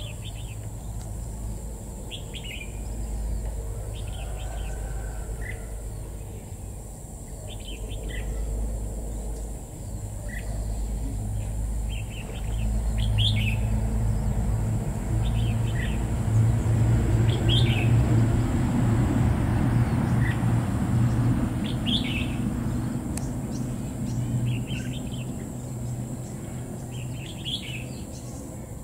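Red-whiskered bulbul giving short chirping calls every second or two. Under them run a steady high whine and a low rumble that swells in the middle and fades again.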